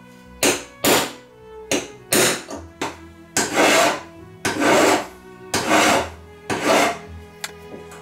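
A hammer striking a pin punch, about ten uneven blows, driving out the old rivet pins that hold a pocket knife's handle scales. Background string music runs underneath.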